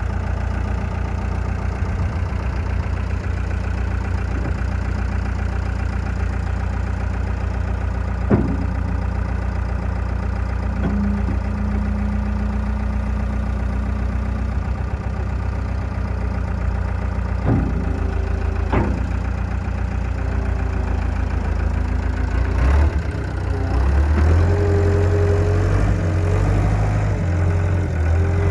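Gehl 5635DXT wheeled skid steer's diesel engine idling steadily, with a few sharp knocks; about 23 seconds in, the engine note changes and a higher whine comes in.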